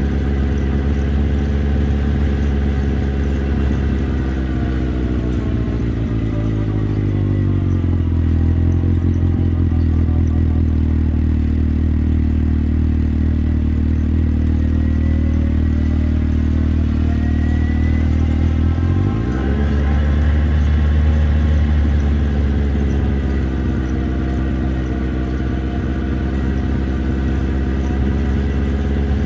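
Motorcycle engine slowing and dropping to a steady idle for about ten seconds, then revving up sharply about 19 seconds in as the bike pulls away, running on at varying revs.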